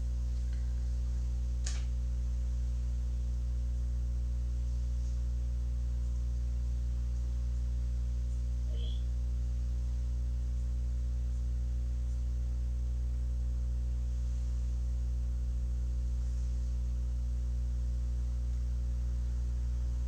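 Steady electrical mains hum, a constant low buzz with a single faint click about two seconds in.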